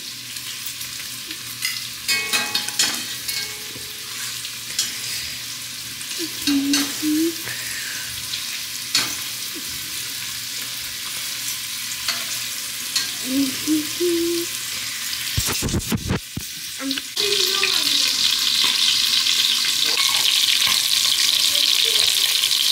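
Pork belly frying in its own rendered fat in a stovetop pot, a steady sizzle; it is soft at first and becomes much louder about two-thirds of the way through.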